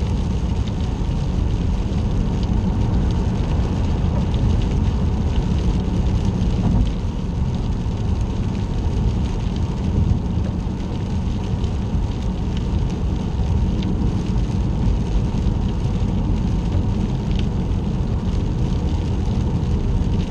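Steady road and tyre noise heard from inside a car moving at freeway speed on wet pavement, with rain hitting the windshield as scattered small ticks.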